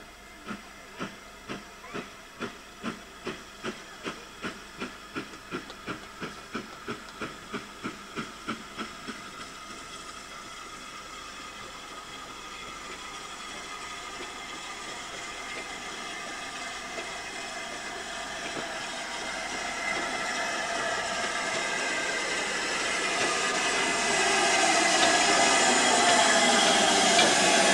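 LMS Stanier 8F 2-8-0 steam locomotive No. 48431 coming in: regular exhaust beats, about two and a half a second and quickening slightly, die away about nine seconds in. A steady hiss of steam then grows louder and louder as the engine draws alongside.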